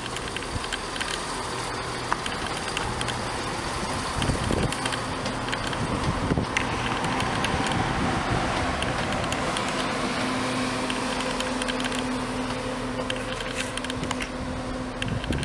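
Diesel multiple unit moving slowly through the station, its underfloor diesel engines running with a steady hum and a low note that strengthens in the latter half.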